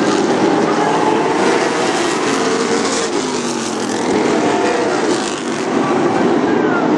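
A pack of late model stock cars racing together on a short oval, several V8 engines at once, their pitch rising and falling as they lift and accelerate through the turns.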